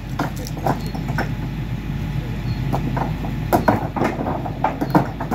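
Steady low running of the Caterpillar excavator's diesel engine, with irregular sharp clacks and knocks of stone paving blocks being handled and set in place.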